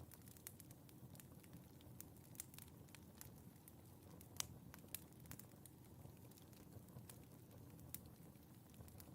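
Wood fire crackling in a fireplace: scattered sharp pops and snaps over a soft low rumble, the loudest pop about four seconds in.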